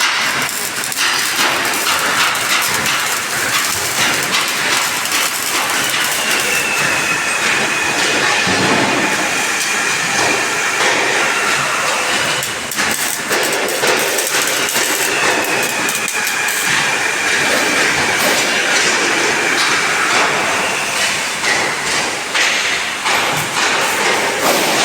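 Electric welding arc crackling and sizzling steadily, with brief breaks about a second in and near the middle, and a faint high tone that slowly falls twice.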